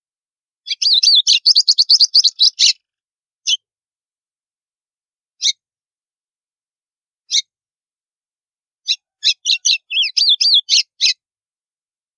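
White-throated seedeater (golinha) singing its 'estalo' song type: a rapid run of sharp, high chirps lasting about two seconds, three lone notes about two seconds apart, then another quick, varied phrase near the end.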